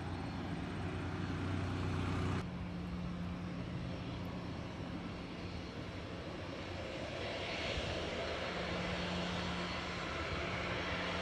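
Aircraft engines running with a steady low hum; the sound changes abruptly about two seconds in, and from about seven seconds in a rushing hiss builds and grows louder.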